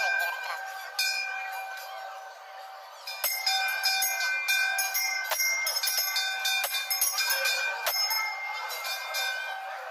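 Hanging brass temple bell rung by hand. It is struck once and its ring fades over about three seconds, then it is struck again and again, about twice a second, each stroke renewing the ring.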